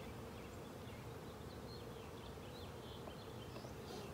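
Honeybees buzzing around an open hive: a steady, even hum of many bees in flight.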